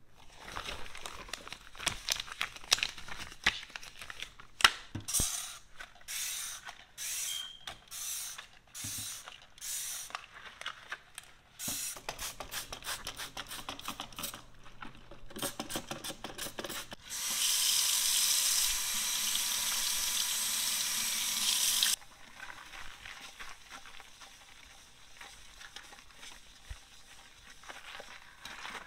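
Rubber cleaning gloves crackling as they are handled, then a series of short trigger-spray squirts of degreaser and diluted bleach onto a porcelain sink. After that comes a loud steady hiss for about five seconds that cuts off sharply, and then quieter scrubbing of the sink with a melamine magic eraser.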